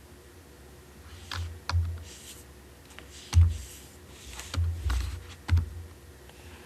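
Computer keyboard keystrokes, about six separate key presses spaced irregularly, as text in a dimension is edited.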